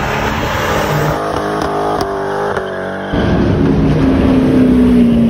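Sports-car engines in short clips cut together. A car's engine and exhaust run under way; then, about three seconds in, an abrupt cut brings a louder supercar engine holding one steady, slowly falling note.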